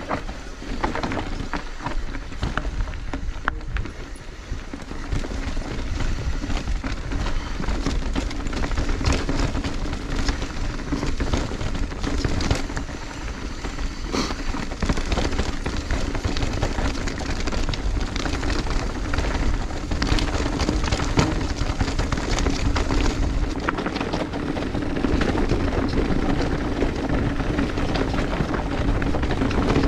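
Mountain bike riding down a dirt trail: a steady low rolling rumble with constant crackle and rattle from the tyres and bike over rough, stony ground.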